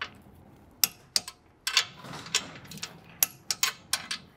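Click-type torque wrench ratcheting on the Golf R's lower ball-joint nuts as they are torqued to 40 newton metres. It makes a series of sharp, irregular metallic clicks, with a quicker run of about five near the end.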